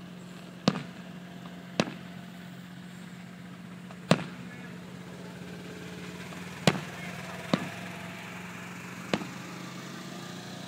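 Fireworks going off: six sharp bangs at uneven intervals, over a steady low hum.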